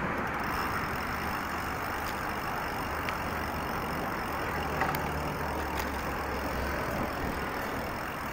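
Steady road traffic from the multi-lane road alongside, with a vehicle's low engine hum growing louder from about four to seven seconds in, and a few faint clicks.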